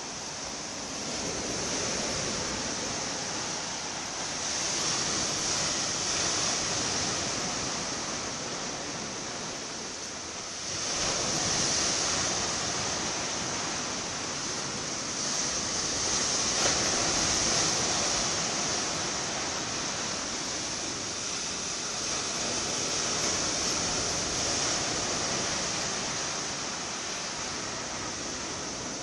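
Ocean surf washing in: a steady hiss of waves that swells and eases every several seconds.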